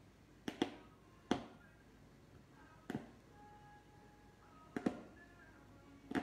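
Punch needle stabbing through cotton fabric stretched taut in a wooden embroidery hoop: a short, sharp tap with each stitch, about five or six at uneven intervals a second or more apart.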